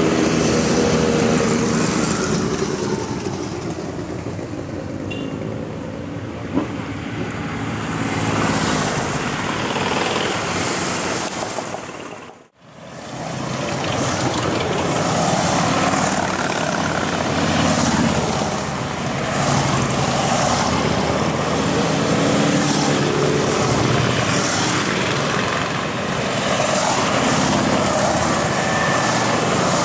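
A group of Harley-Davidson motorcycles riding past, their V-twin engines running loudly and overlapping. The sound drops out for a moment about twelve seconds in, then the engines continue.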